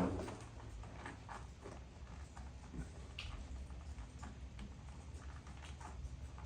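Faint scattered clicks and taps of hands working on a mower's handle and self-propel cable, with a single thump at the start, over a low steady background hum.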